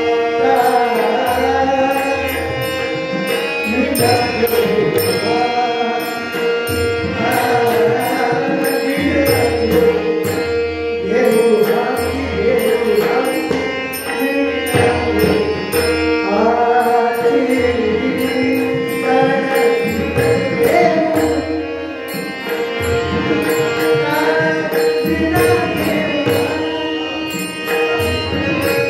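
Devotional bhajan: a man singing a winding melody over a steady drone, with small hand cymbals keeping an even beat and a drum beneath.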